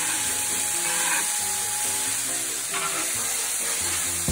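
Diced, marinated flank steak sizzling in olive oil in a cast iron skillet over medium-high heat, stirred and turned with a spatula.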